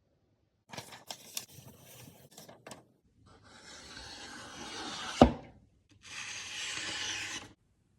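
Three stretches of rubbing and scraping strokes, with a few clicks in the first and one sharp knock about five seconds in, typical of work on a knife blade.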